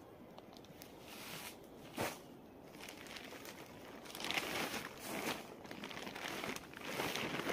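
Crinkling and rustling of a blue plastic tarp being unfolded and spread out on the ground, with louder bursts of rustle from about four seconds in and a single short thump about two seconds in.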